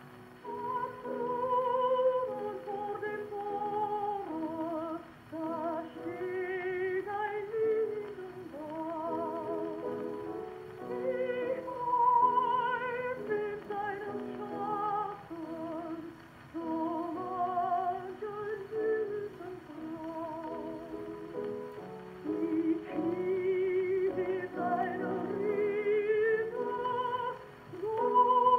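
A woman singing a German art song with wide vibrato over piano accompaniment, played from a 78 rpm shellac record on an acoustic gramophone with a thorn needle. The sound is thin and lacks the highs, as an old record does.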